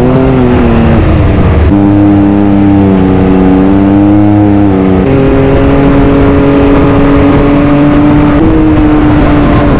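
Can-Am Maverick X3's turbocharged three-cylinder engine and exhaust heard from the cockpit, running at fairly steady revs while driving, its pitch shifting a few times as the throttle changes.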